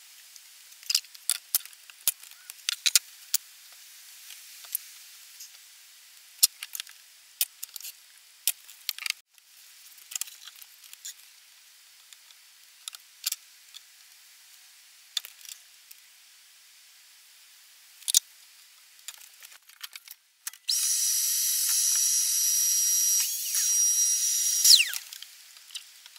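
Light clicks and knocks of wooden panel strips being handled and fitted together, then, about twenty seconds in, a cordless drill-driver runs for about four seconds with a steady high whine that slides down in pitch as it stops.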